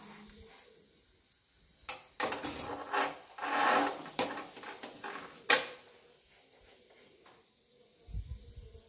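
Ghee-brushed paratha frying on a hot tawa, sizzling, with rustling and knocks from handling and a sharp click about five and a half seconds in.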